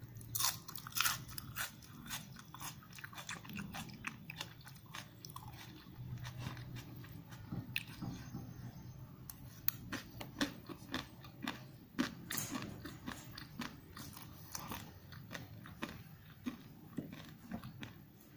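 Close-miked chewing and biting of spicy Wai Wai instant noodles, with many irregular, sharp crunches and mouth clicks.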